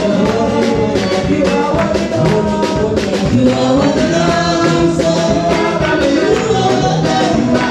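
Gospel praise music, with singing and a steady rattle of tambourine-like percussion.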